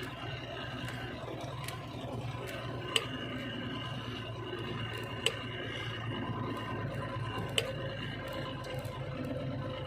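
Vehicle engine idling with a steady low hum, heard from inside the cab, broken by three sharp clicks a little over two seconds apart.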